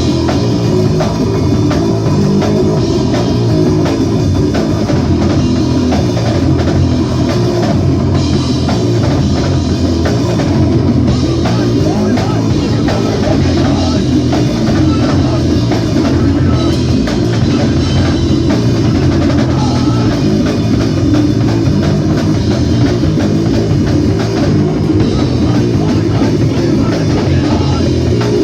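Rock band playing a song live, loud, with electric guitar and drum kit; the song kicks in abruptly right at the start and runs at full volume throughout.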